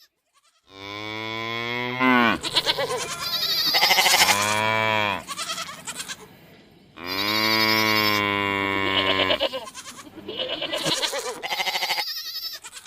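Farm animals calling: two long, low, drawn-out calls, one about a second in and one about seven seconds in. Shorter wavering bleats come between and after them.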